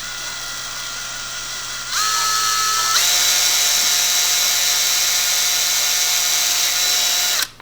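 Electric hand drill running while drilling a mounting hole for a fog light. The motor whine steps up in speed twice in the first three seconds, holds steady, and stops shortly before the end.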